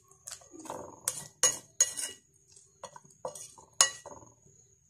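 Metal spoon stirring a wet mixture of beaten egg and milk-soaked bread in a glass bowl, clinking irregularly against the glass, with a few sharper clinks among softer scrapes.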